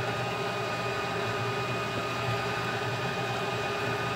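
Stand mixer's motor running steadily as it beats butter-cookie batter in a large stainless-steel bowl, an even hum with a few constant tones.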